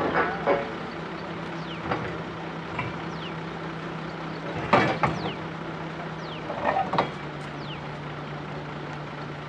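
Truck-mounted borewell drilling rig's engine running steadily at a constant pitch, with a few short sharp metallic knocks and clanks, the loudest about five seconds in.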